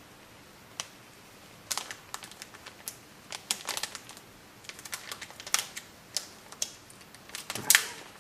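Anti-static bag crinkling in the hands as it is handled, in irregular sharp crackles, the loudest cluster near the end.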